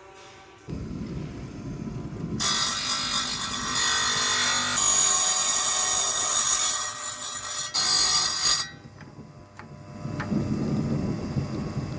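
Power tool with a diamond blade cutting porcelain stoneware tile lengthwise into a skirting strip. The motor spins up under a second in, then a loud harsh grinding runs for about six seconds while the blade is in the tile, and drops back to the motor running lighter near the end.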